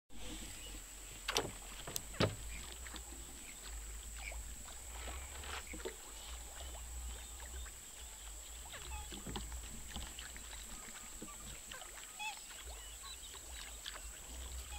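A small boat moving across a lake: a steady low rumble with water washing along the hull, and a few sharp knocks about one and a half and two seconds in.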